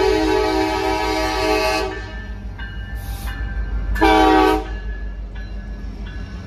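Union Pacific diesel locomotive's air horn sounding a chord: a long blast that stops about two seconds in, then a short blast about four seconds in. Underneath is the steady low rumble of the locomotives and train passing close by.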